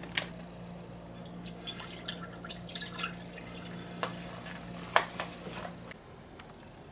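Liquid dripping and splashing into a pot as a pouch of stew is emptied, with a few sharp clicks and crinkles from the packaging. A steady low hum underneath stops about six seconds in.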